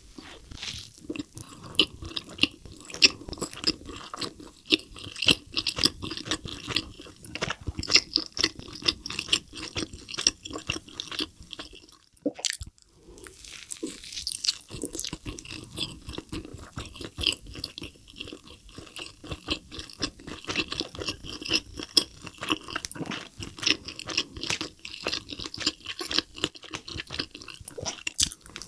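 Close-miked ASMR biting and chewing of a double cheeseburger, with soft bun and cheese giving dense wet mouth sounds. The chewing breaks off briefly about twelve seconds in, then resumes.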